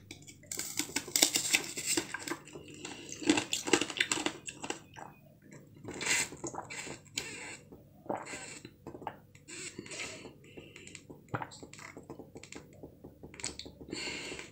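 Close-up eating sounds: biting into and chewing a blue jelly-like food, with many irregular crisp crackles and clicks, busiest in the first few seconds.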